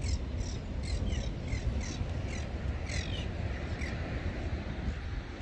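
Birds chirping over and over: short, high, falling chirps about two or three a second, thinning out near the end. Under them runs a steady low rumble.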